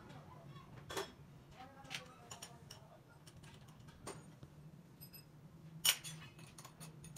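Metal clinks and clicks of a tractor crankshaft and tools being handled on a crankshaft grinding machine, a few separate strikes, the loudest about six seconds in, over a steady low machine hum.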